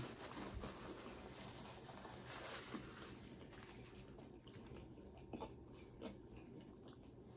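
Faint chewing of a mouthful of food close to the microphone, with a couple of soft mouth clicks about five and six seconds in.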